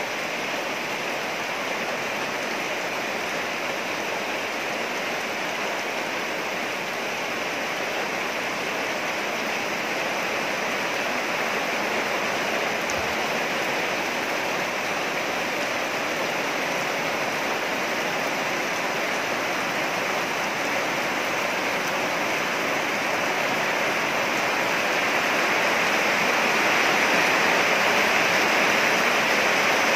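Steady rain falling on grass, mud and leaves, an even hiss that grows a little louder near the end.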